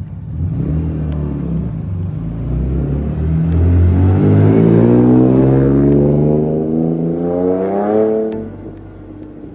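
Alfa Romeo GTV's 3.0 V6 engine revving, its pitch climbing steadily for about five seconds before the revs drop away near the end.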